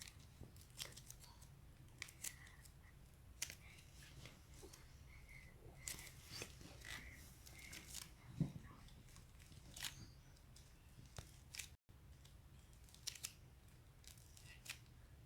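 Cracking clay being squeezed and pressed by hand, giving faint, irregular sharp crackles and pops, several a second at times, over a low steady hum.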